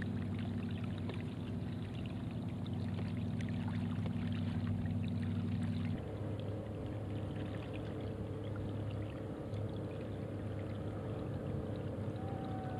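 Water trickling and gurgling along a moving fishing kayak's hull on calm water. A steady low hum runs underneath and shifts to a higher pitch about six seconds in.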